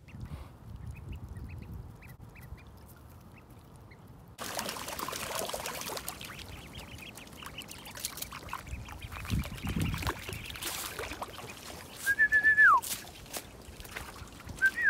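Indian runner ducklings peeping repeatedly in short high notes, with some water splashing. About twelve seconds in, a person whistles one held note that drops off at the end, then whistles briefly again near the end.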